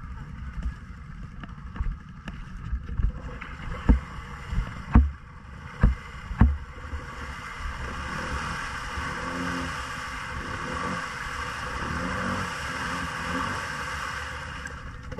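Honda Foreman ATV bogged in deep mud and water, its engine running under load as the 30-inch mud tires spin and churn the mud. A few heavy thumps in the first half, then from about 8 seconds in a steady, louder churning of spinning tires throwing mud and water.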